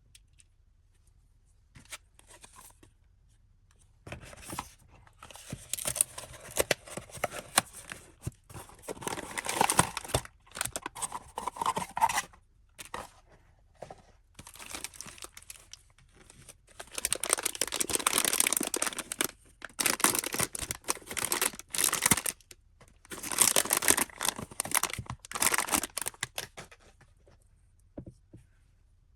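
Blind-box packaging being torn open and crinkled by hand, in bursts with short pauses between them.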